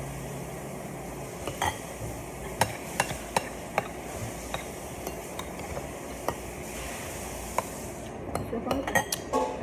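Metal spoons and forks clinking and scraping against ceramic plates and bowls during a meal: about ten sharp, irregularly spaced clinks that bunch up near the end.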